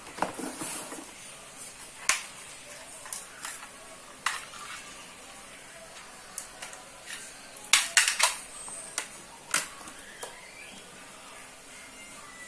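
Hands handling a plastic surge protector strip, its cardboard box and a plastic screwdriver-bit case: scattered sharp clicks and knocks, with a quick run of several clicks about eight seconds in.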